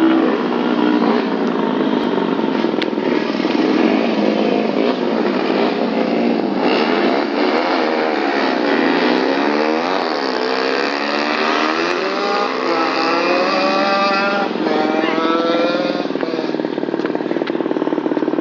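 Two small four-stroke single-cylinder motorcycles, a tuned Honda CB and a stock Yamaha Jupiter MX, racing at full throttle. Their engine notes climb and drop through the gears and cross one another.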